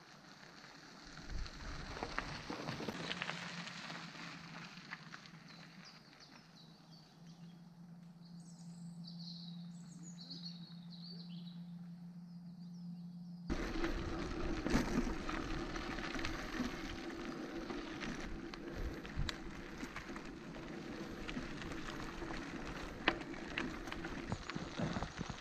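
Mountain bikes rolling over a gravel forest road, with birds chirping. About halfway through it jumps to a camera on a moving bike: a louder, steady crunch and rattle of tyres over loose gravel.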